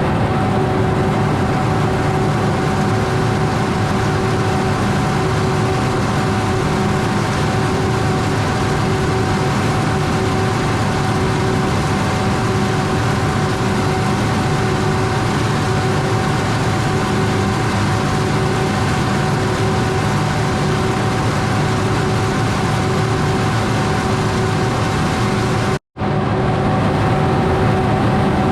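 Heavy diesel cotton-harvest machinery running steadily: a constant engine drone with a steady whine over it. The sound cuts out for an instant near the end, then resumes the same.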